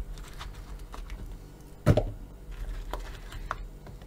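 Knife cutting peeled zucchini against a plastic cutting board: a few light taps, with one louder knock about two seconds in.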